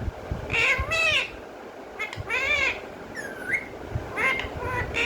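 Pet parrot calling in a run of about five short, pitched calls, some arching and some sliding upward in pitch.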